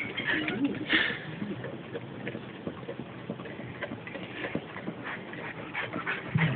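Pot-bellied pig eating food off the ground: a run of many small irregular crunching and snuffling clicks, with a brief louder noise about a second in.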